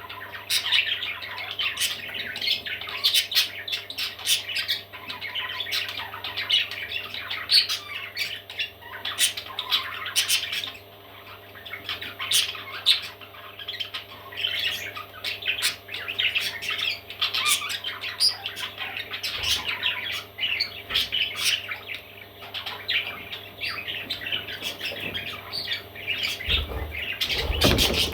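Parrot chicks calling: a steady stream of short, rapid, harsh squawks and chirps, over a low steady hum. A few low thumps come in near the end.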